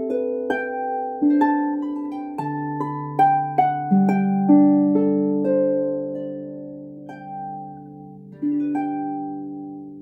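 Solo concert harp: slow plucked notes and chords ring on and overlap above held low bass notes, slowly growing softer. A final chord comes about eight and a half seconds in and is left to ring out, closing the piece.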